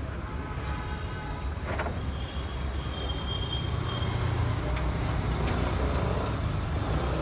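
Street traffic noise: a steady low rumble of passing vehicles, with a few brief higher tones and clicks over it.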